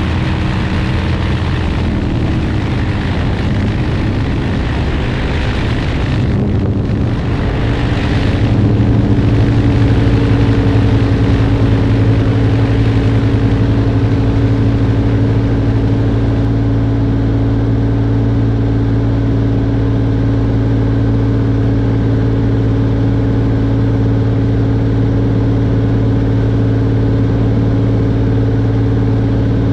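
A Stinson 108 light aircraft in cruising flight: the steady drone of its propeller and piston engine, with wind rushing past. About eight seconds in, the drone grows slightly louder and deeper and the wind hiss dulls, then it holds steady.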